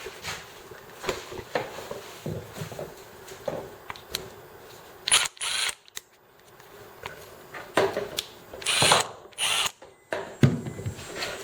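Milwaukee 2754 3/8-inch cordless impact wrench run free in several short trigger pulls, with no load on the anvil. Between the runs, plastic and metal handling clicks.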